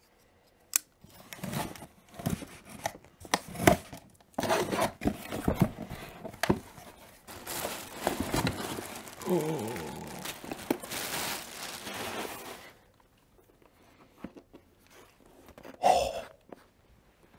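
Cardboard shipping box being opened: flaps and tape pulled with sharp tearing and scraping. Plastic air-pillow packing crinkles and rustles as it is lifted out. It goes quieter near the end, with one brief louder sound.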